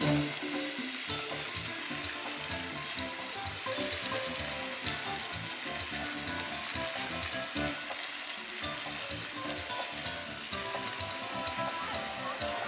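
Fountain jets spraying and splashing into a pond: a steady hiss of falling water, with faint music playing underneath.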